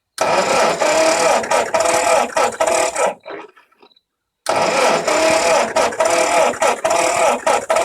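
Ford 8N tractor's 6-volt starter cranking its four-cylinder engine in two bursts of about three seconds each, with a short pause between. The engine turns over without firing: a no-start.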